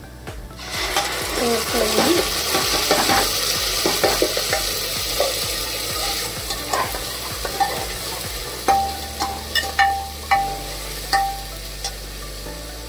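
Ground masala paste hitting hot oil and browned onions in a pressure cooker: a loud sizzle starts sharply under a second in and slowly dies down as a steel spatula stirs it. Near the end the spatula clinks several times against the cooker.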